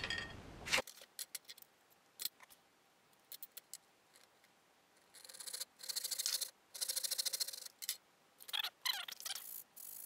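Hand saw cutting a thin wooden strip: two short bursts of quick, fine rasping strokes, about five and seven seconds in, after a few light handling clicks.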